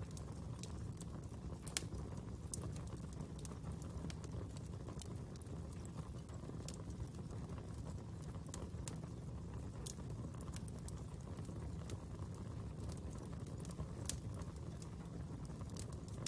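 Fire crackling: a steady low rush with scattered sharp pops and snaps at irregular moments, two louder pops about two seconds in and near the end.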